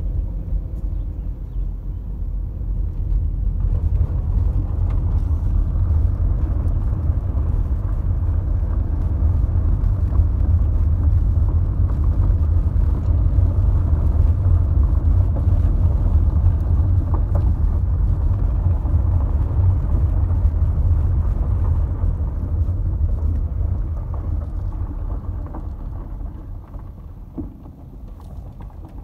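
Car driving along an unpaved forest road, heard from inside the cabin: a steady low rumble of tyres and engine that builds up over the first few seconds and dies down toward the end.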